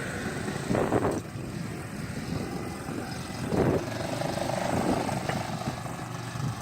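A small engine running, swelling louder about a second in and again near the middle.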